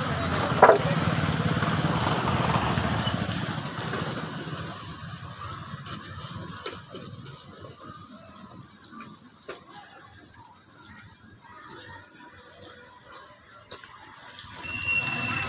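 Bajji (gram-flour chilli fritters) deep-frying in hot oil in a kadai: a steady sizzling hiss, loudest for the first few seconds, then settling into a quieter crackle with scattered pops. There is one brief sharp click about a second in.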